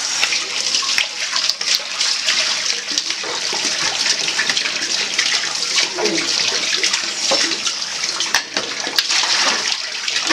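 Tap water running in a steady stream onto a bunch of self-sealing water balloons and into a tub of water, a continuous splashing hiss with scattered small splashes and plops.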